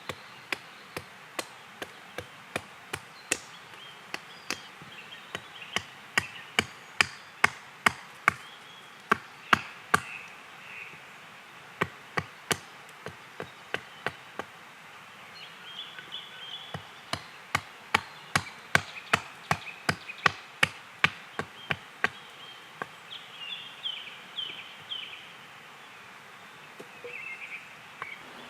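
Axe chopping wild cherry on a stump, hewing out spoon blanks: sharp strikes about two a second, broken by short pauses, stopping a little before the end.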